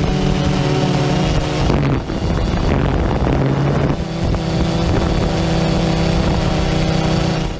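An engine running steadily with a droning hum that shifts in pitch about two seconds and four seconds in.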